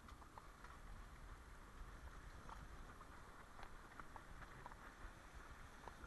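Near silence: a faint low rumble with scattered light ticks, the muffled sound of a small sailboat pitching through rough sea.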